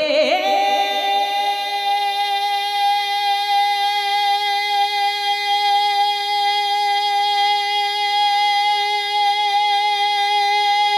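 A man singing a naat, holding one long high note for about ten seconds after sliding up into it at the start, with no instruments heard.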